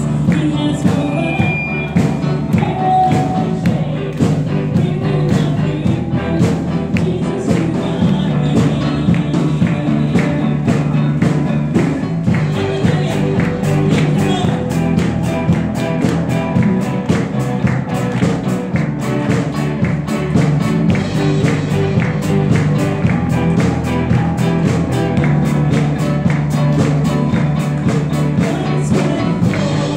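Live worship song: a woman sings lead into a microphone, joined by backing vocalists, over instrumental accompaniment with a steady beat.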